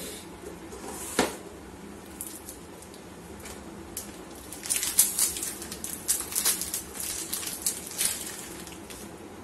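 Plastic snack packet crinkling in the hands, in a run of crackles for a few seconds in the second half, after a single sharp tap about a second in.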